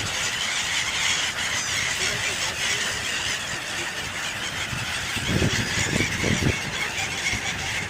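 A large flock of waterbirds calling at once: a dense, continuous shrill chatter of overlapping squeals. A few louder low rumbles come in between about five and six and a half seconds in.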